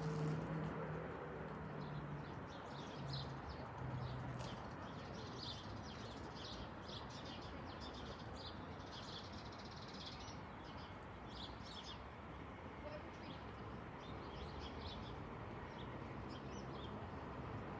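Small birds chirping and twittering in quick, repeated high calls over a steady low background noise, with a low hum that fades out over the first few seconds.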